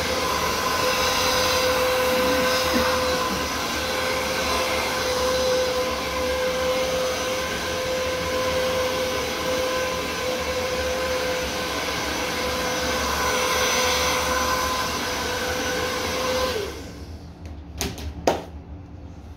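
Hand-held hair dryer blowing with a steady whir, switched off near the end, its motor briefly spinning down. Two sharp knocks follow about a second later.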